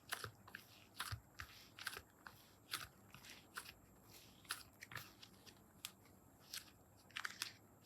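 Slime being pressed and handled, giving faint, irregular crackly clicks and pops, a couple each second.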